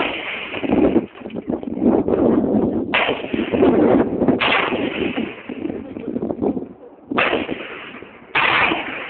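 A series of loud, sudden blasts, five or so, each trailing off over about a second.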